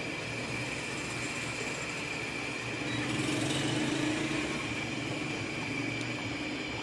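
Steady mechanical hum and hiss that swells a little louder for a couple of seconds in the middle, then settles back.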